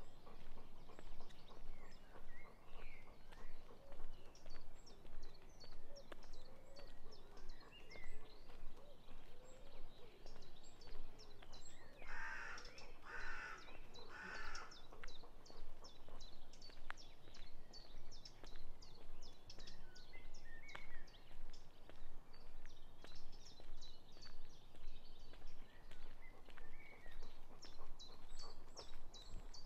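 Steady footsteps along a country path, about one and a half steps a second, with small birds chirping now and then. About twelve seconds in, a crow caws three times in quick succession.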